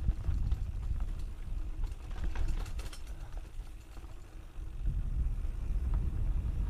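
A mountain bike descending a dirt trail, heard through an action camera's microphone: wind buffets the mic in a steady low rumble while the bike rattles and clicks over rough ground. There is a cluster of clattering in the middle, and the rumble eases briefly about four seconds in.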